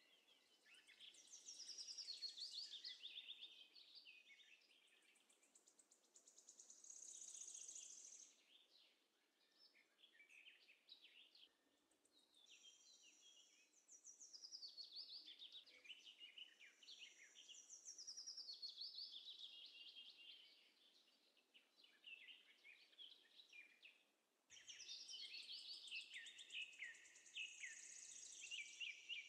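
Faint chorus of small birds chirping and singing in quick, high notes. The chorus breaks and changes abruptly twice.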